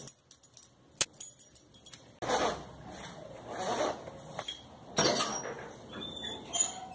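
A bunch of keys jingling with light clinks and one sharp click about a second in, followed by rustling handling noises.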